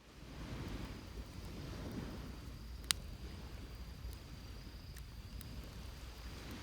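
Bonfire on a beach: a steady low rumble of surf and wind on the microphone, with one sharp crackle of burning wood about three seconds in and a couple of fainter crackles later. A thin, steady high insect trill sounds faintly underneath and fades out near the end.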